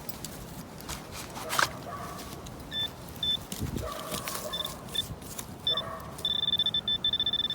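Metal detector sounding on a buried target: a few short, high electronic beeps, then a continuous steady tone from about six seconds in.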